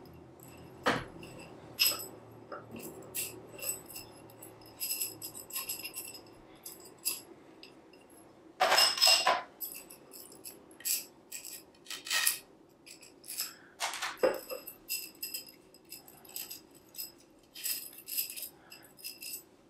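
Tensegrity struts and barbed tendon connectors being worked apart by hand: irregular light clicks, taps and clatter, some of the knocks leaving a brief metallic-sounding ring. The loudest knocks come about 9, 12 and 14 seconds in.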